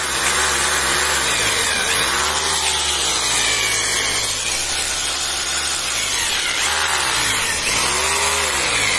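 Corded rotary hammer drill running under its trigger. The motor speeds up and slows down about five times in a row.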